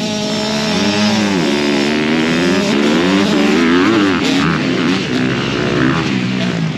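Small off-road racing engines revving up and down as they run around the dirt track, the pitch rising and falling again and again.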